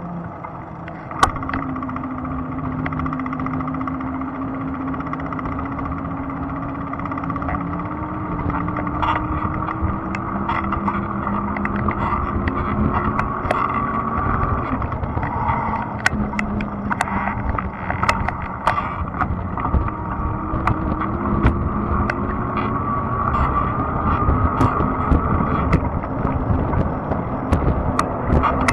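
Fat-tire e-bike riding along a trail: a steady rumble of tyres and rushing air, with a faint whine that slowly rises in pitch twice, and scattered sharp clicks and knocks from bumps.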